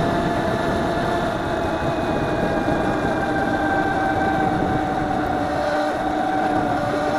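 Motorcycle engine running at a steady, low speed while riding, under a steady rush of wind and road noise.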